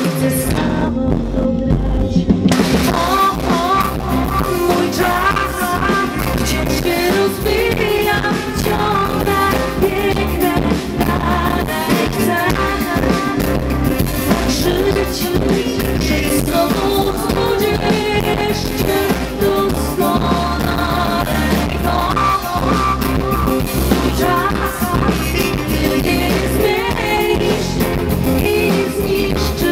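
Live pop-rock band playing, with drums, bass and guitars, and a woman singing over it into a microphone through the PA.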